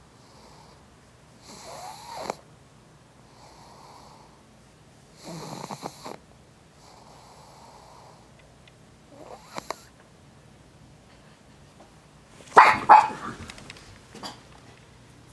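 Pug snoring in her sleep: rasping snoring breaths come every three to four seconds, with softer breaths between them. The loudest and sharpest one comes near the end.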